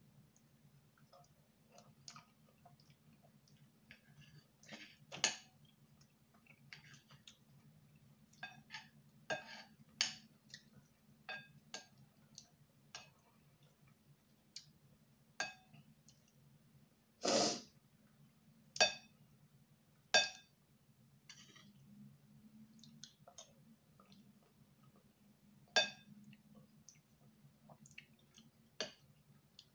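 Close-miked eating sounds: wet mouth clicks and smacks from chewing soft fufu and soup, with a handful of sharper ringing clinks, typical of a utensil tapping a dish. A steady low hum runs underneath.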